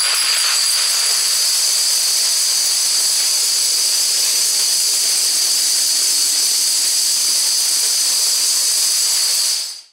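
A wall of 5,700 plastic dominoes toppling in a continuous chain, a dense, steady clatter that sounds almost like a hiss. It cuts off suddenly near the end.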